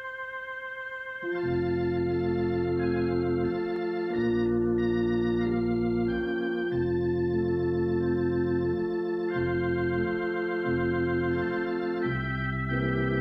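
Organ playing a slow hymn prelude in long held chords, a few high notes first and then bass notes and fuller chords coming in about a second and a half in.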